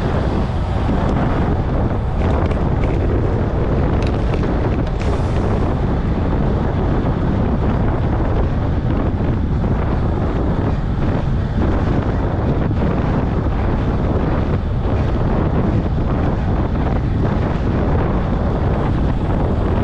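Wind buffeting the microphone of a camera on a moving bicycle: a loud, steady rumble that does not let up.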